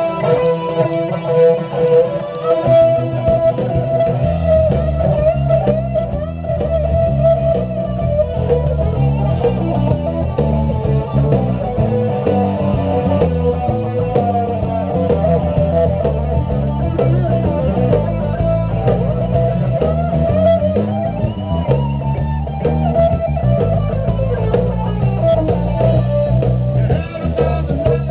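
Stratocaster-style electric guitar played live, picking out a melodic line, over a low bass part that comes in about two and a half seconds in.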